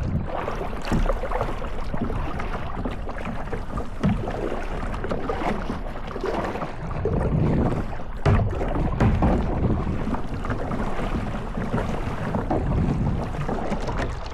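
Wind buffeting the microphone on open water from a kayak: a continuous rumble that swells and eases in irregular gusts, over the noise of moving water.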